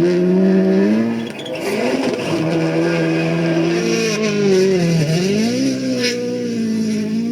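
Rally car engine running at high revs. The pitch drops briefly about a second in, then falls further about four to five seconds in and climbs back up, as the driver lifts and gets back on the throttle.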